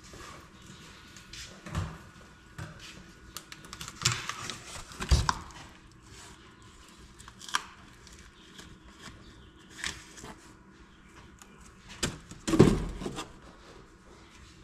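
Cardboard box being fetched and handled, with scattered knocks and rustles, then set down on the workbench with a heavy thud near the end.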